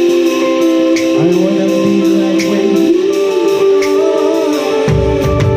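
Live band music: held electric guitar chords with a man singing into a microphone, a light tick about twice a second keeping time, and a low bass note coming in near the end.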